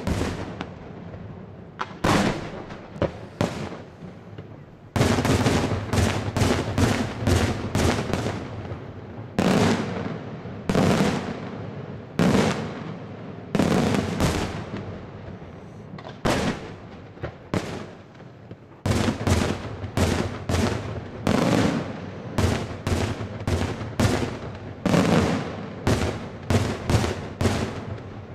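Daytime aerial fireworks: rapid volleys of loud shell bursts and bangs, each with a short echo, coming in quick runs with brief lulls between them.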